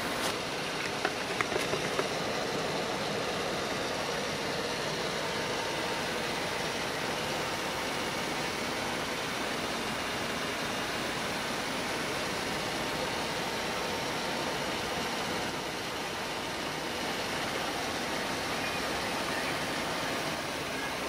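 12 V DC 150 W car fan heater running, a steady even rush of fan air. A few light clicks sound in the first couple of seconds.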